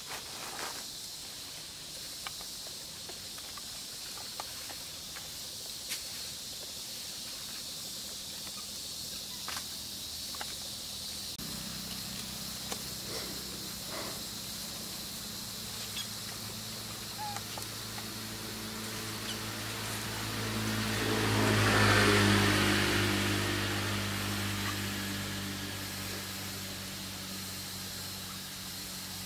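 A motor vehicle passing by: its engine hum comes in about a third of the way through, swells to a loud peak about two-thirds in, then fades. Under it runs a steady high hiss with scattered small clicks.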